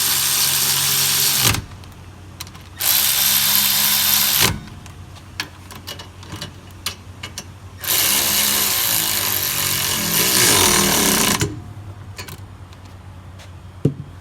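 Power tool running down the rear brake caliper's 12 mm bolts in three runs of about two, two and three and a half seconds, with light clicks between runs.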